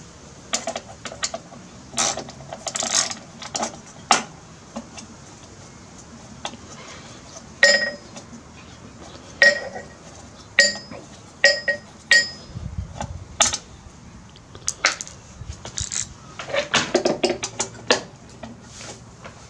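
Metal clicks and clinks of a socket wrench and loose bolts while parts are unbolted from a Briggs & Stratton lawnmower engine. Several clinks in the middle ring briefly, and a quick cluster of clicks comes near the end.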